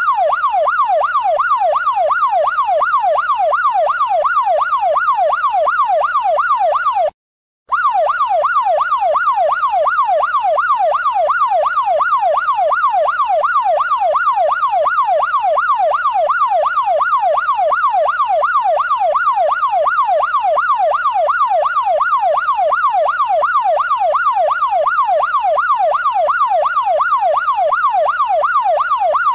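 Electronic police siren in fast yelp mode: a piercing tone sweeping rapidly up and down several times a second, without a break except for a brief drop to silence about seven seconds in.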